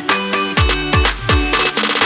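Background electronic dance music: a steady beat of deep kick drum hits that drop in pitch under sustained chords, ending in a fast drum roll.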